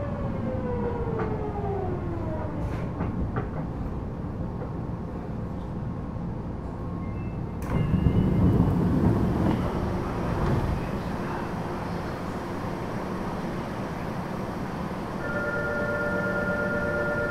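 Interior running sound of a Fukuoka City Subway Series 2000 car: the Hitachi GTO-VVVF traction inverter's whine falls in pitch over the first few seconds as the train slows, over a steady rumble of wheels on track. About eight seconds in the rumble grows louder, and near the end a few steady tones sound.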